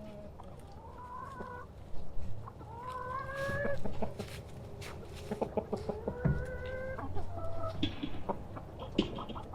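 Domestic chickens clucking, with three drawn-out calls that rise in pitch, and a scattering of sharp clicks and knocks.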